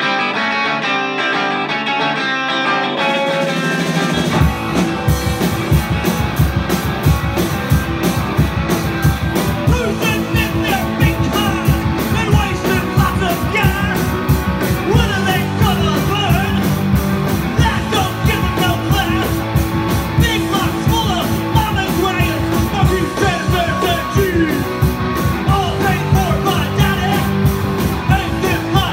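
Live punk rock band playing loud and fast: electric guitar alone at first, then the drum kit and bass guitar come in about four seconds in, and a singer's vocals join from about ten seconds in.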